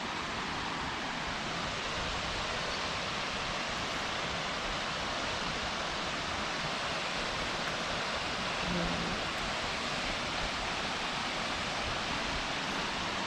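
El Salto waterfall pouring, a steady, unbroken rush of falling water.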